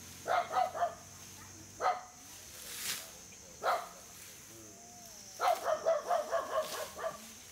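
Short barks in bouts: a few in the first second, single barks around two and four seconds in, then a rapid run of about ten barks past five seconds in, over a steady thin high-pitched whine.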